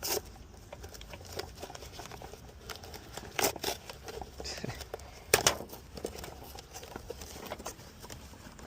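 Taped packaging of a replacement thermostat being torn open and unwrapped: crinkling and rustling with a few sharp rips.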